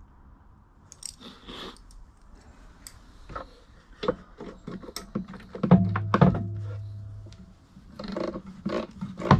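Wrench and metal fittings clinking and knocking as rusted headlight pod fasteners on a Lotus Esprit are worked loose by hand. There is a louder metallic clank about six seconds in that rings on briefly.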